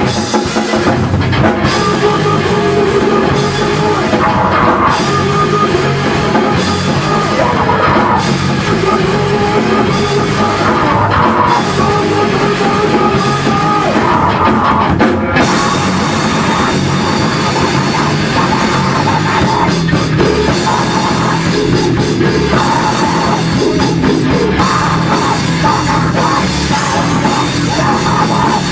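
A rock band playing live and loud, with a full drum kit driving a steady beat.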